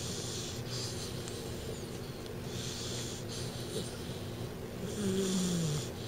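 A 12-week-old American Bulldog puppy snoring in his sleep, three hissing breaths about two and a half seconds apart. The last ends in a short, louder, falling low tone. The owner puts the snoring down to his large overbite.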